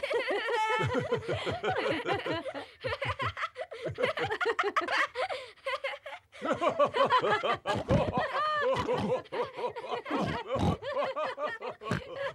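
Several cartoon voices laughing together in a long run of chuckles and giggles.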